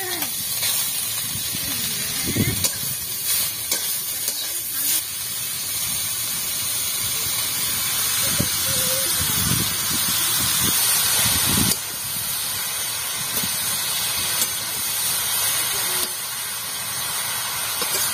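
Grated carrot frying in hot ghee in a kadai: a loud, steady sizzle, with a spatula scraping and tossing the carrot a few times, around two seconds in and again from about eight to twelve seconds.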